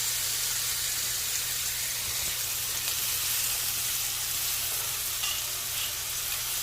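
Steak frying in a hot pan: a steady, even sizzle.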